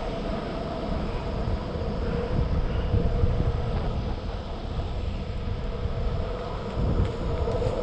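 Skateboard wheels rolling along an asphalt path: a steady low rumble with a constant hum over it.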